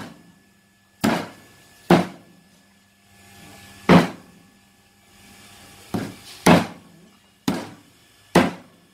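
Large kitchen knife chopping raw chicken on a thick round wooden chopping block: seven sharp, irregularly spaced thuds.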